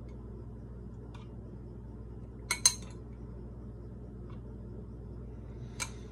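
A spoon clinking against a glass while yogurt is spooned in. There are two sharp clinks close together about two and a half seconds in, another near the end, and a few fainter taps in between.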